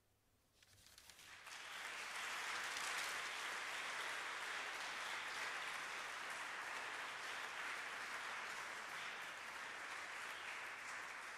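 Audience applauding. After a brief hush, the clapping swells over about a second and then holds steady.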